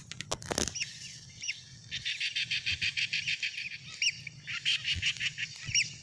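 Two sharp knocks near the start, then a quick run of short, high chirping calls, about six a second.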